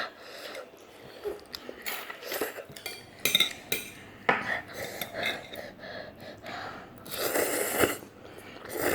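Metal utensils clinking and scraping against a bowl of noodles in a series of short irregular knocks, with a longer noisy scrape about seven seconds in.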